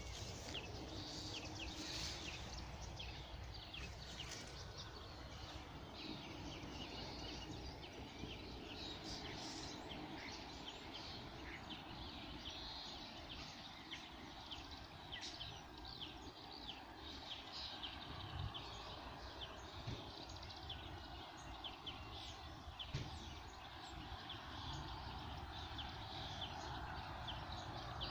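Several small songbirds chirping and singing, with many short, high calls throughout, over a steady low background rumble.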